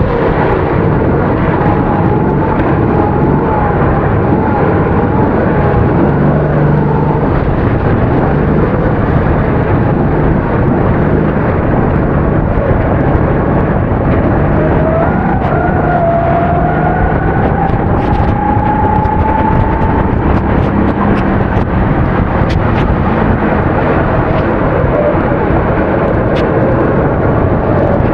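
270cc kart engine running hard under race load, its pitch climbing and dropping as it accelerates and backs off, beneath a loud steady rushing noise. A few sharp clicks or ticks come in the second half.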